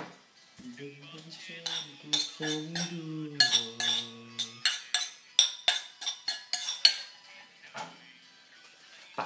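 A spoon clinking quickly and repeatedly against a bowl as rice with soy sauce and egg is stirred and mixed. A short melody sounds over the first few seconds.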